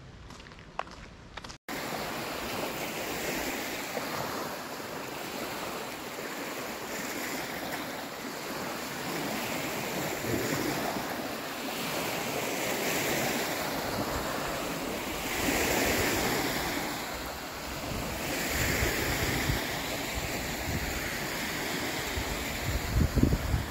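Lake waves washing onto a sandy shore in a strong wind, swelling every few seconds, with wind buffeting the microphone near the end. The first second or so holds faint footsteps on a road before it cuts off.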